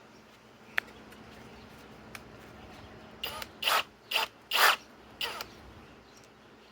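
All-metal keyless chuck of a Master Force boost hammer drill being tightened by hand onto a spade bit: a single click about a second in, then five short rasping ratchet bursts roughly half a second apart around the middle.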